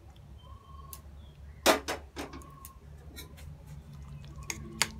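Metal spatula clinking and tapping against a stainless steel bowl while dal is served into it: a few sharp clinks, the loudest about a second and a half in and two more close together near the end, with small ticks between.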